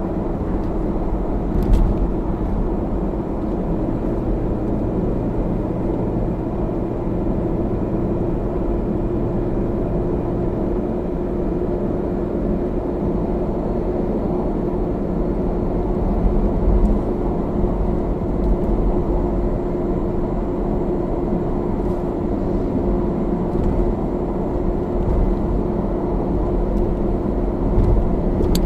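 Toyota Camry AVV50 driving: steady road and tyre noise with a steady drone underneath. The noise comes from around the left front and was diagnosed as an age-worn bearing at the drive shaft.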